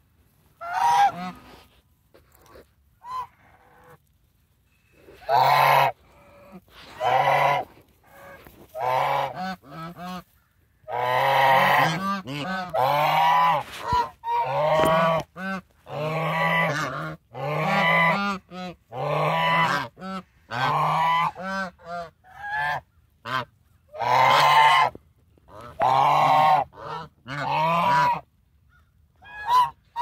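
African geese honking loudly and repeatedly. A few single honks come in the first seconds, then a steady run of honks, about one a second, carries on until near the end.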